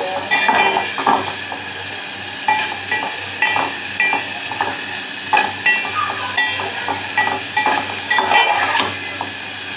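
Capsicum, green chillies and tomatoes sizzling in hot oil in a metal pan over a high gas flame, with frequent short metallic scrapes and clinks as they are stirred.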